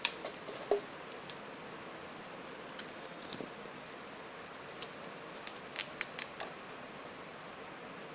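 Stiff plastic OHP sheet crackling and clicking as it is folded over a board's edge and pressed down by hand. A scattering of sharp, short clicks, the loudest near the start and a cluster around two-thirds of the way through, sits over a steady low hiss.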